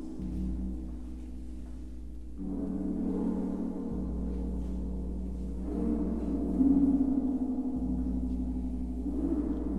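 Tam-tam droning with a dense, wavering sustained tone that swells and ebbs in waves every few seconds, loudest a little past the middle.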